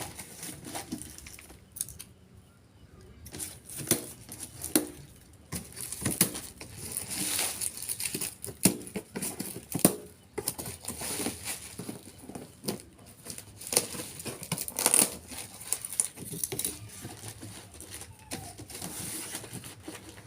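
Parcel packaging being handled and opened: irregular crinkling, rustling and tearing with sharp snaps and clicks.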